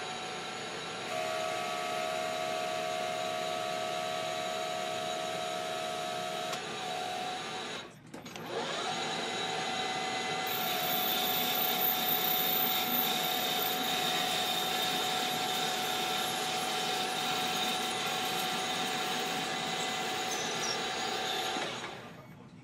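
Metal lathe running and turning a metal bar, giving a steady motor-and-cutting whine with held tones. It breaks off for a moment about eight seconds in and cuts out just before the end.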